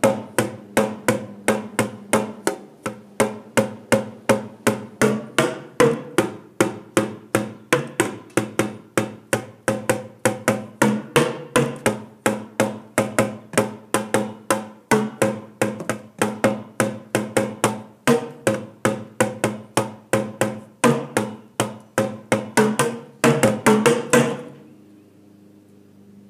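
Makeshift drum kit of plastic buckets beaten with sticks: a continuous run of sharp knocks, several a second, speeding into a quick flurry about 23 seconds in and then stopping.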